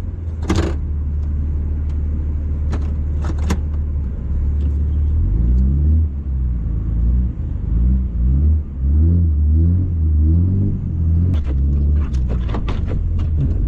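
Cummins diesel pickup engine running under way with a steady low drone, then revving up and dropping back repeatedly from about five seconds in. A few sharp ticks come shortly after the start and again near the end.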